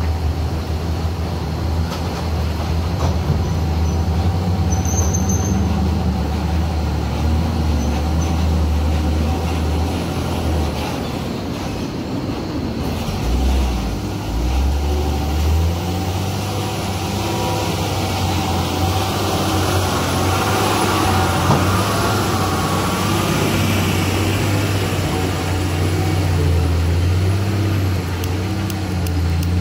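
Heavily loaded Tata diesel tipper trucks running steadily under load, a continuous low engine drone as they pull round a hairpin bend.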